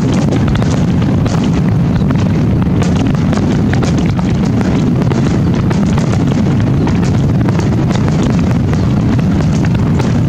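Aerial firework shells bursting in a rapid barrage: the booms overlap into an unbroken low rumble, with many sharp cracks on top throughout.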